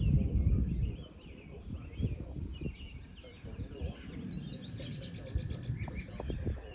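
Small birds chirping, with a rapid trill about five seconds in. Under them runs a low rumbling noise, loudest in the first second and then easing.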